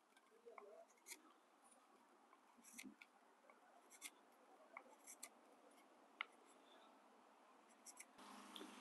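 Faint, short scrapes of a knife blade shaving small slices off the end of a wooden dowel, one stroke every second or so.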